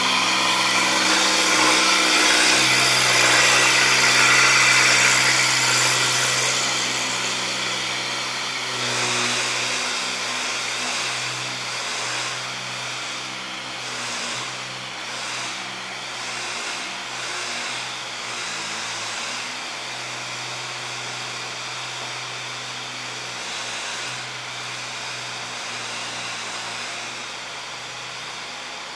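Engine running steadily at one speed, with a loud hiss over it for the first eight seconds or so that then eases off, the whole sound growing fainter toward the end.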